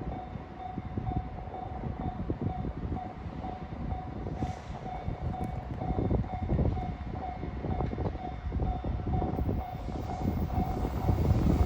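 Japanese level-crossing warning bell ringing with an even, repeating ding, over the low rumble of an approaching train that grows louder near the end.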